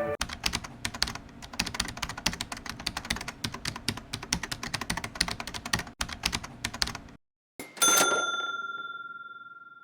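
Typewriter sound effect: rapid key clicks for about seven seconds, then a short pause and a single bell ding that rings out and fades.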